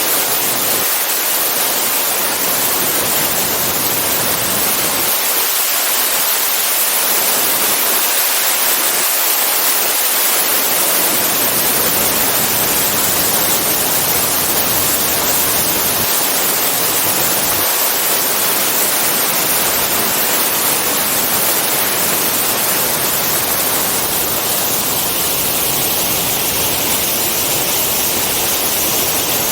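Waterfall pouring steadily: a constant rushing hiss of falling water, with little low rumble.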